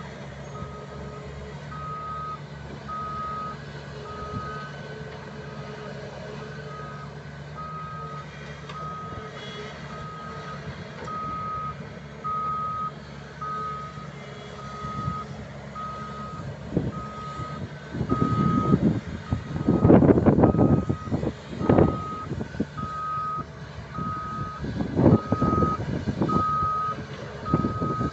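Reversing alarm on heavy machinery beeping steadily at about one beep a second over a diesel engine running. About two-thirds of the way in, loud rough bursts of noise start and come several times.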